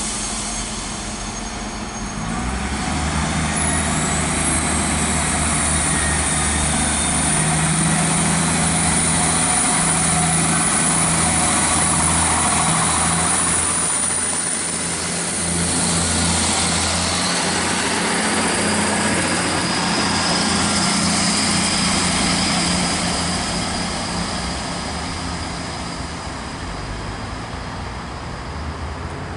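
Class 158 diesel multiple unit accelerating away from a station stop, its underfloor diesel engines droning under power. The drone swells a couple of seconds in, steps up again a few seconds later, and fades as the train draws away near the end.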